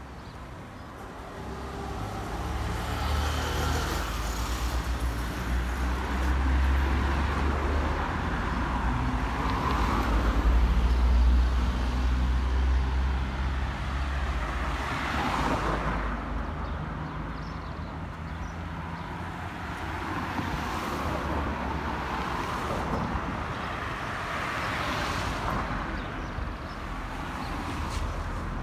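Street traffic with vehicles passing one after another. A deep engine rumble builds to its loudest about ten seconds in, then further vehicles swell up and fade as they go by.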